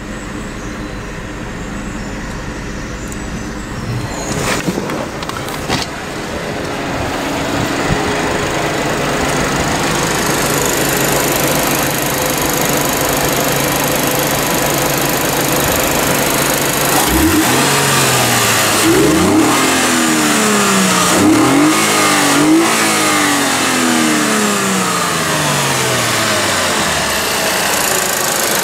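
Lexus IS250's 2.5-litre V6 idling steadily, with a couple of sharp knocks about five seconds in. A little past halfway it is revved several times in quick blips, each rise in pitch falling back, before it settles to idle again.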